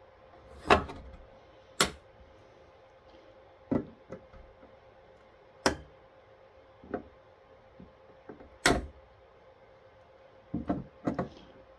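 A series of sharp snaps, a second or two apart with a quick double near the end: the strong coil springs of heat-sink push pins letting go and shooting out through the circuit board as diagonal cutters cut through the pins.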